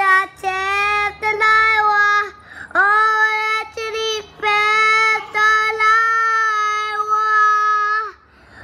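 A small child singing in long held vowel notes at a steady high pitch, with short breaks between them; the last note is held for over three seconds and stops shortly before the end.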